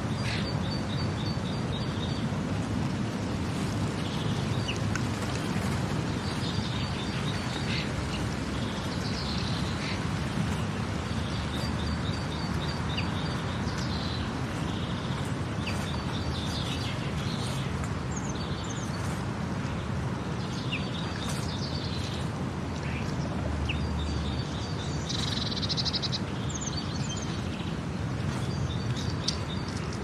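Nature ambience: birds singing short, rapidly repeated high trills every few seconds over a steady rushing background.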